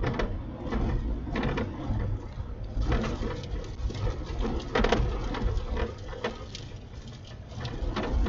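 Strong gusty wind from a nearby tornado rumbling on the microphone, with scattered irregular knocks and spatters, the loudest about five seconds in.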